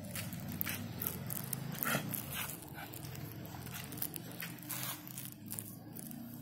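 Street dog making short vocal sounds, the clearest about two seconds in, over a steady low hum.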